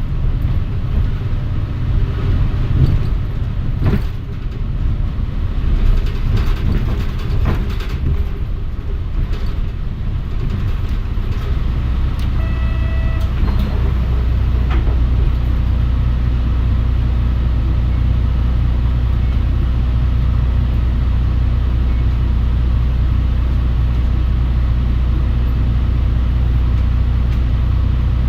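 Cabin sound of a Mitsubishi Fuso Aero Star bus, with the engine and body rumbling and a few knocks and rattles in the first ten seconds. About eleven seconds in, the engine settles into a steady low drone that holds, and a short electronic beep sounds about a second later.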